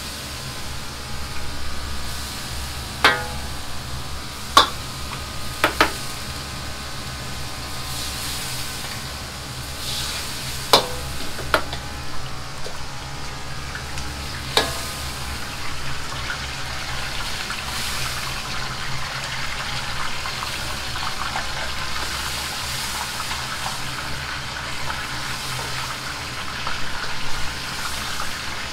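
Mapo tofu sizzling in a wok over a running gas wok burner, with the steel ladle striking the wok about half a dozen times with sharp ringing clangs during the first half.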